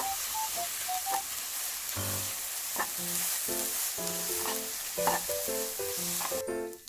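Egg-coated rice sizzling in an oiled frying pan as it is stir-fried with a spatula. The sizzling stops abruptly near the end.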